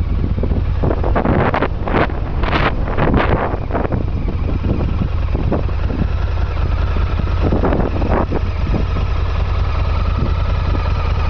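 Harley-Davidson VRSCA V-Rod's V-twin engine running at a steady speed, with gusts of wind buffeting the microphone over the first few seconds.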